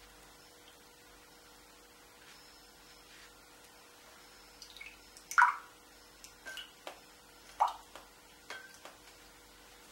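A few small watery splashes and drips, with two louder ones about halfway through and again two seconds later: a watercolour brush being dipped and rinsed in a jar of water.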